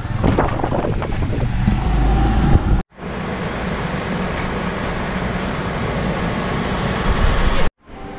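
Three-wheeled mototaxi riding along a street: its small motorcycle engine under the rush of wind and road noise, which cuts off suddenly about three seconds in. After the cut comes a steady rumble with a faint high whine from a train standing at the station.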